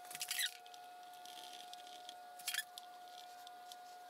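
Faint hand-handling noises on an open transmission: two short rustling scrapes, one at the start and one about two and a half seconds in, over a steady faint tone.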